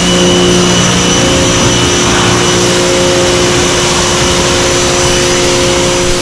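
Giraffe Tools Grandfalls electric pressure washer running steadily, a loud spray hiss over the steady hum of its pump motor, its jet rinsing a wet car down.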